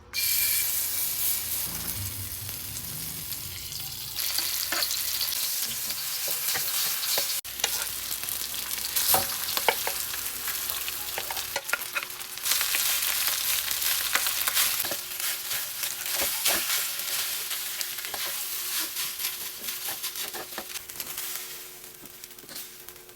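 Food sizzling in a hot frying pan, with a spatula or spoon stirring and knocking against the pan in scattered clicks. The sizzle starts suddenly at the beginning.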